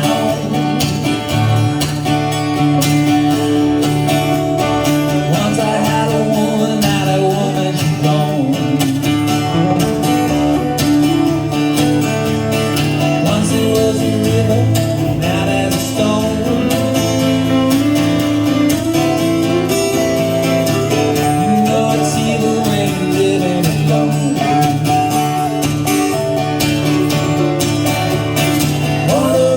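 Live band music led by guitars, with a steady beat and a sung melody.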